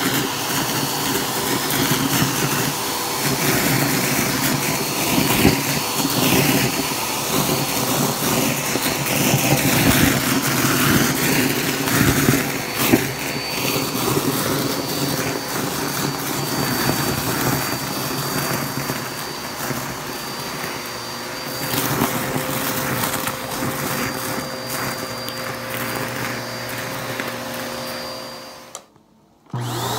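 Vacuum cleaner running steadily while its hose nozzle sucks up loose tissue paper squares from carpet, the paper crackling and rustling as it is drawn in. The sound cuts out briefly near the end.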